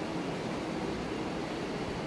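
Thick dosa batter being whisked by hand in a plastic bowl, making a steady wet noise.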